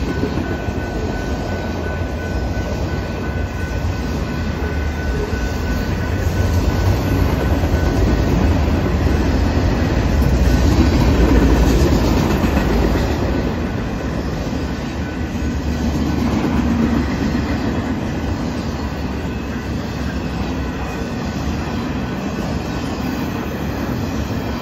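Cars of a Norfolk Southern manifest freight train rolling past at a grade crossing: a steady, loud rumble that swells about ten to twelve seconds in.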